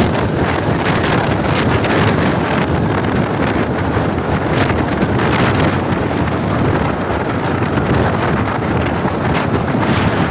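Steady wind rush on the microphone of a Honda Activa 6G scooter riding at about 50 km/h, with the scooter's running and road noise underneath.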